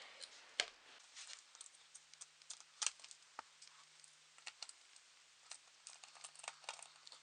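Light, irregular clicks and ticks of a screwdriver and small screws as the screen-hinge screws of a Chromebook laptop are undone and handled, about a dozen scattered taps.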